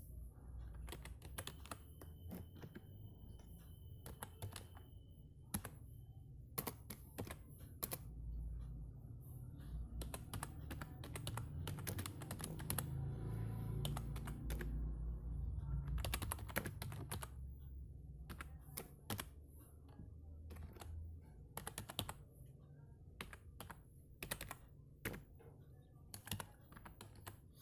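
Irregular quick clicks of typing on a phone's on-screen keyboard, coming in short runs with pauses, over a low background rumble that swells around the middle.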